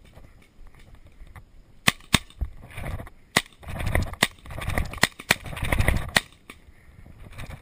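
Tippmann paintball marker firing, about seven sharp shots at uneven intervals starting about two seconds in.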